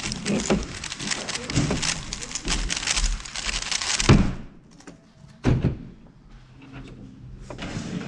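Rapid plastic clicking and clacking of a 3x3 speedcube being turned fast. About four seconds in it ends in a sharp knock as the solve stops and the cube is put down on the Stackmat timer mat, with another knock about a second and a half later. Clattering starts again near the end.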